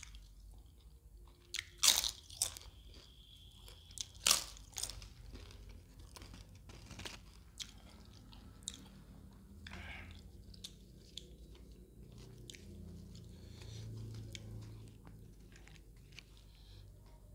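Close-miked eating and food-handling sounds. There are a few sharp, crisp crunches about two and four seconds in, then softer crackles and quiet chewing.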